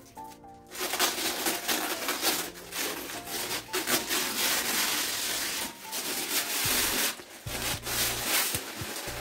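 Plastic bag wrapping crinkling and rustling as it is pulled off an appliance, loudest from about one second in until near the end, over background music.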